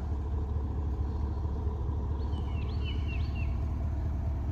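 Yanmar ViO80 excavator's four-cylinder diesel engine idling steadily, with a few short bird chirps about halfway through.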